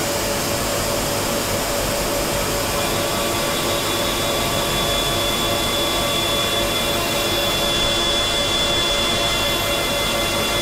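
CNC mill spindle, a Teknomotor ATC41, running steadily with its cutter facing the spoilboard: a continuous machine noise with a steady hum, and a high whine that joins about three seconds in.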